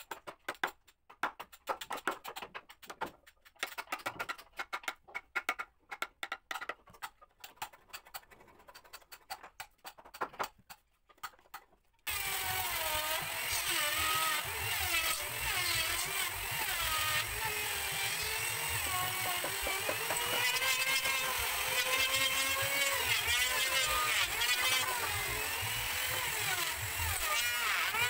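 Hammer striking a steel chisel in quick, irregular taps, chopping a mortise in a teak beam. About twelve seconds in, this cuts off suddenly and a handheld electric router runs continuously along a teak beam, with music playing over it.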